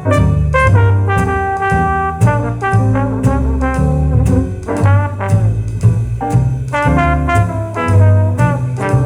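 Jazz recording played back over a hi-fi loudspeaker and picked up by a room microphone: an instrumental passage with a brass instrument carrying the melody over bass and band, without singing.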